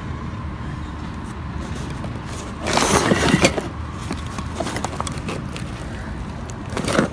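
Handling noise as a hermetic compressor housing is picked up and turned over on cardboard: a burst of rustling with a few sharp knocks about three seconds in and some clicks near the end, over a steady low background hum.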